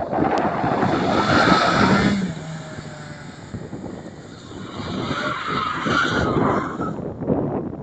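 BMW E30 318is drifting: tyres squealing as the car slides, over its four-cylinder engine at high revs. The squeal is loudest in the first two seconds, where the engine note drops. It dies down, then comes back about five seconds in for a second slide.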